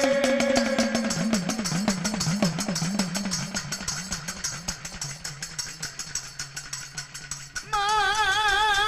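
Gujarati folk devotional music. A low voice holds a long, wavering note that slides slowly down in pitch over a fast, steady percussion beat. Near the end, a higher wavering held note comes in more loudly.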